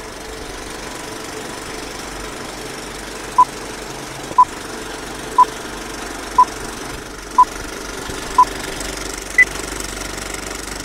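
Old film-projector countdown-leader effect: a steady projector clatter with a short beep once a second, six alike, then a seventh at a higher pitch. The beeps start about a third of the way in.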